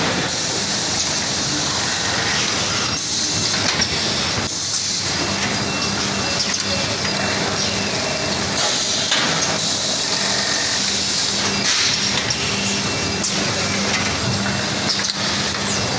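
Semi-automatic bag packing machine running: steady machinery noise with short bursts of compressed-air hiss every few seconds as the pneumatics work, and a steady low hum from about five seconds in until near the end.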